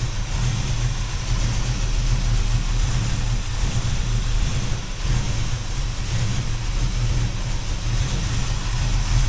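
1968 Chevrolet El Camino engine, fitted with headers and Flowmaster mufflers, running steadily at idle with a low, even rumble.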